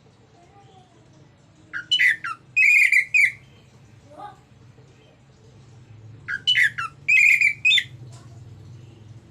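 Orange-headed thrush singing two loud phrases about four seconds apart, each a quick run of strong whistled notes. A low steady hum lies underneath.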